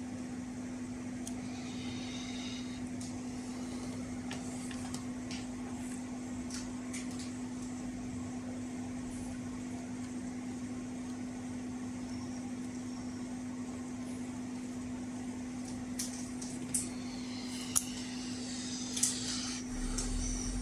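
A steady low electrical hum runs throughout, with scattered light clicks and taps from handling small tools and parts during soldering work. The clicks come more often in the last few seconds.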